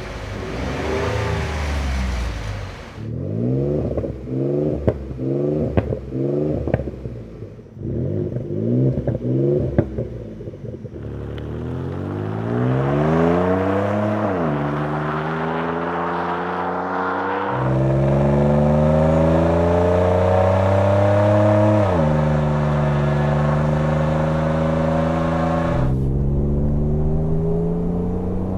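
Ford F-150's 3.5L EcoBoost twin-turbo V6 through a Roush single-side-exit cat-back exhaust with Y-pipe tips: a run of quick free revs, then accelerating under load, the pitch climbing and dropping sharply at three gear changes.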